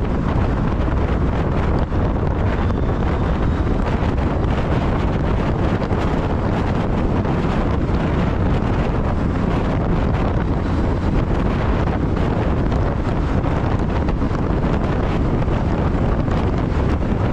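Wind rushing over the microphone of a moving motorcycle at a steady level, heaviest in the low end, with the bike's travel noise underneath.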